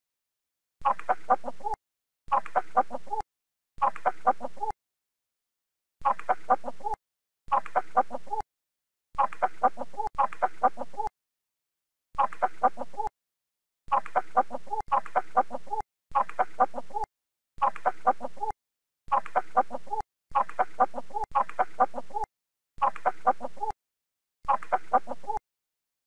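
Chicken clucking in short bursts of a few clucks each, about a second long, with complete silence between them. The same burst comes back again and again, roughly every one to two seconds.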